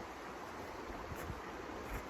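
Steady hiss of wind blowing through a snowstorm.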